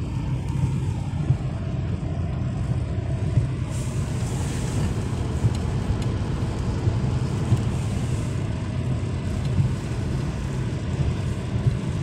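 Steady low rumble of a car driving on a wet road, heard from inside the cabin: engine and tyre noise, with a brief hiss about four seconds in.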